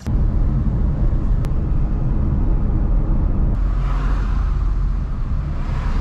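Car driving, heard from inside the cabin: a steady low road and engine rumble, with a hiss that swells from about four seconds in.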